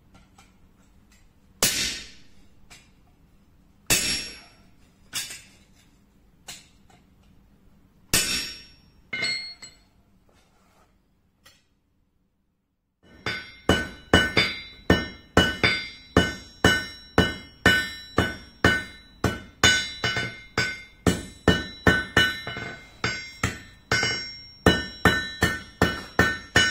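Hand hammer striking red-hot steel on an anvil: a few single blows a second or two apart, then, after a brief silence about halfway through, a steady run of about two to three blows a second, each with a ringing anvil tone.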